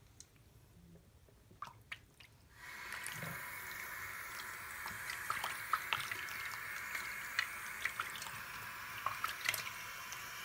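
Bathroom sink tap turned on about two and a half seconds in and running steadily, with drips and small splashes as water falls on a guinea pig's fur in the basin.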